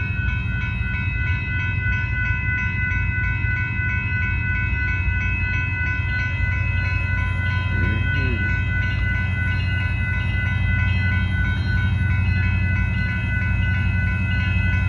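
Railroad crossing bell ringing continuously in fast, even strokes over the steady low rumble of an approaching Union Pacific freight train's diesel locomotives. The rumble grows slightly louder near the end.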